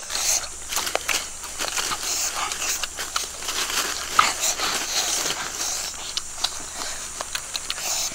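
People eating with their mouths: chewing and crunching with irregular wet clicks.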